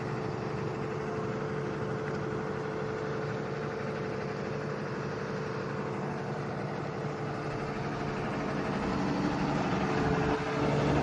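Engine running steadily at idle, a constant hum that grows a little louder near the end.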